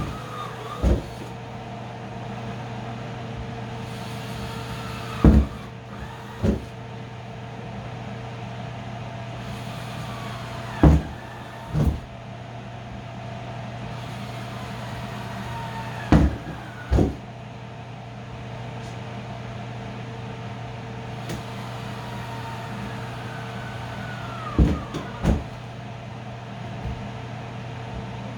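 Cordless drill run in short bursts, boring ventilation holes through a plastic tote: a brief burst, then a second one about a second later, repeated about every five seconds, with the pitch falling away as the bit spins down after each. A steady low hum runs underneath.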